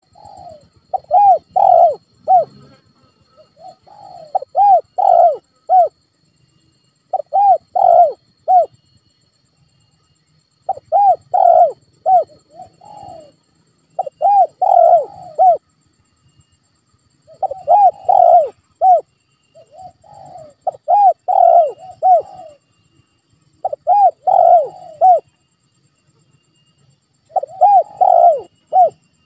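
Spotted dove cooing: about nine phrases, each a quick run of several rising-and-falling coos, repeated every three to four seconds with short pauses between.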